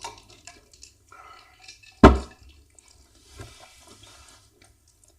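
Wet eating sounds: soft fufu being squished and swallowed with egusi soup, with small mouth clicks. A single short loud sound comes about two seconds in.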